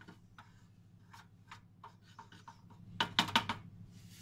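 A utensil scraping and rubbing in a stand mixer's lidded steel bowl as orange zest is added, with scattered small clicks, then a quick run of sharp clicks and taps about three seconds in.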